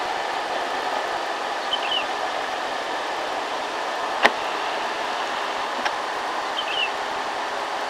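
Diesel engine of a loaded cab-over light truck pulling up a hill, a steady drone, with a sharp click about halfway through and two brief high chirps.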